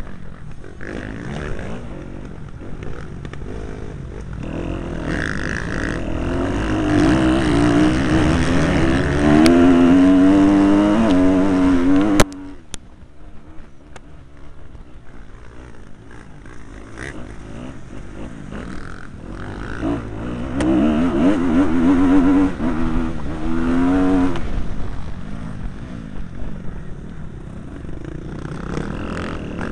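Motocross bike engine revving hard and changing pitch as the throttle opens and closes, with wind rush on a helmet-mounted microphone. The revs build to a loud peak, drop off suddenly about twelve seconds in, then climb again a little after twenty seconds.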